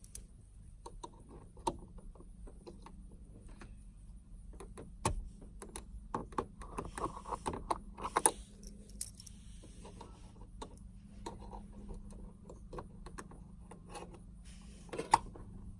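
Small flathead screwdrivers clicking, scraping and tapping against a plastic 12-volt power outlet while the outlet's insert is pried out. The clicks come irregularly, with the sharpest ones about five seconds in, around eight seconds and near the end.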